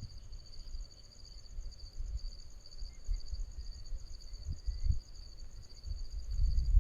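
Insects chirping in a steady, fast-pulsing high trill, with a low rumbling noise underneath that rises and falls and swells near the end.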